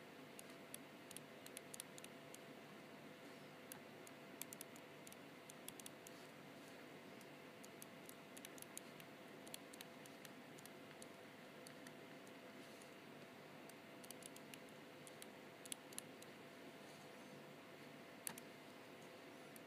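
Faint clicks and light taps of an S Pen stylus tip on a Galaxy Note 3's glass screen during handwriting. The clicks come in irregular clusters over a faint steady hiss and hum.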